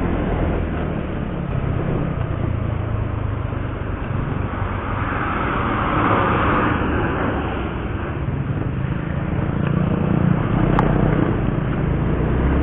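Small Yamaha scooter engine running steadily under way, heard with wind and road noise on the handlebar-mounted camera's mic. The engine hum dips in the middle and picks up again near the end, with a louder patch of hiss about six seconds in.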